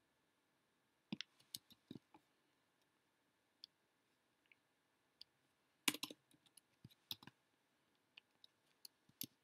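Faint clicks of a computer mouse and keyboard while text is copied and pasted, coming in small scattered groups: about a second in, around six to seven seconds in, and again near the end.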